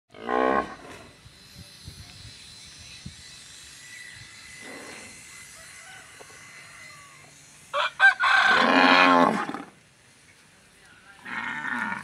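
Cattle mooing: a few calls, the longest and loudest coming about eight seconds in and lasting over a second, with a short one at the start and another near the end.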